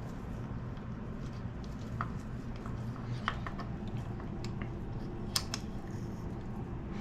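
Light, scattered clicks and taps of metal engine parts being handled while a piston is fitted onto a Suzuki DR200's connecting rod, the sharpest click about five and a half seconds in, over a steady low hum.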